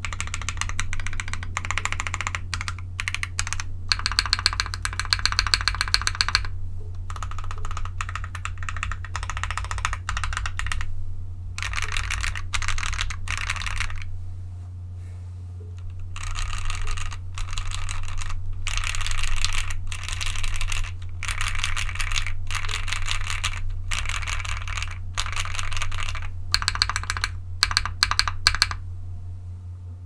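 Typing on an ai03 Vega custom mechanical keyboard with lubed Gateron Black Ink linear switches on a POM half plate and GMK keycaps. Fast runs of keystrokes with short breaks pause briefly about halfway through and stop just before the end, over a steady low hum.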